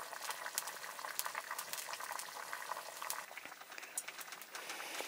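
Pot of food bubbling at the boil, with irregular crackles and pops.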